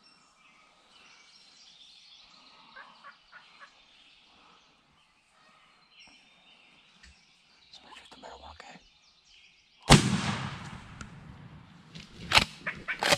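Wild turkeys calling faintly, then about ten seconds in a single loud shotgun blast that trails off, the shot that kills a tom turkey. Two more sharp cracks follow near the end.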